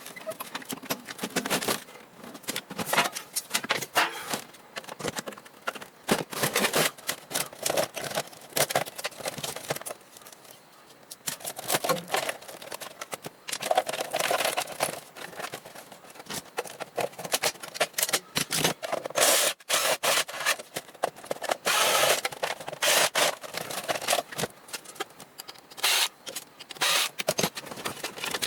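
Desktop computer tower being dismantled: a dense, irregular run of clicks, knocks and scrapes as parts are handled and pulled out.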